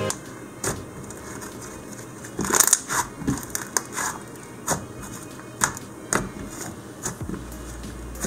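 Hands squeezing, stretching and pressing a thick white slime, giving irregular sticky clicks and pops. The pops come in a quick cluster about two and a half seconds in, then spaced out every second or so.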